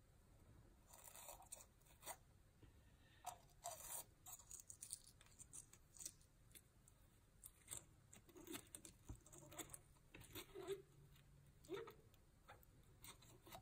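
Faint handling noise: scattered light clicks and soft rustles as a gun-cleaning patch is soaked with solvent.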